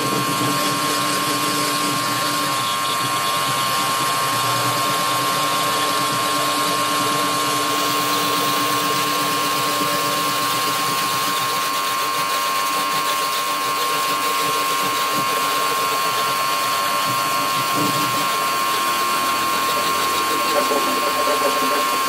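Electric pressure washer running steadily: a constant motor whine over a continuous hiss of water spray.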